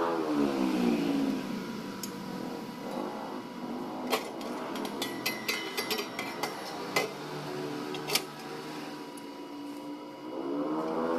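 Chipping hammer tapping slag off a fresh weld on an exhaust pipe: a quick run of sharp metal taps in the middle, the first and last the loudest. A pitched tone slides down at the start and rises again near the end.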